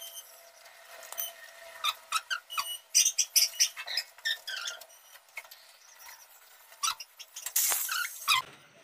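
Small cut marble and tile pieces clicking and tapping against each other and the stone floor as they are set into a border inlay by hand, with a short scrape near the end.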